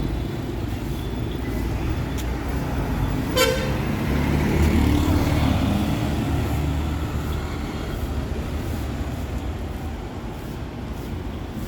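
Street traffic with one short vehicle horn toot about three seconds in, then a motor vehicle passing close, its engine growing louder and fading away.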